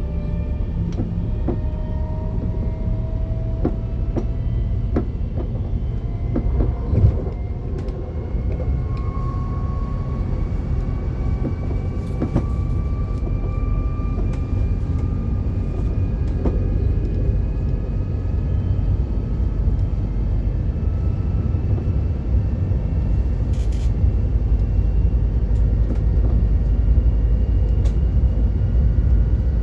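Siemens Desiro HC electric multiple unit running under power, a steady low rumble with several thin whining tones from its traction equipment rising slowly in pitch as it gathers speed. A few sharp clicks come in the first quarter.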